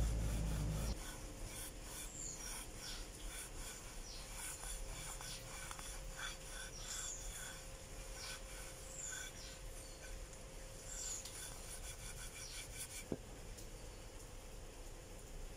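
A cloth rubbing and scrubbing over a tarnished brass plate. The rubbing is loudest for the first second, then carries on more softly, with a sharp click near the end.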